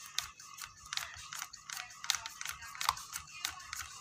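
Irregular light clicks and taps of a plastic syringe and hose being handled inside an opened steam iron, as the syringe is worked into the clogged water hose to flush it.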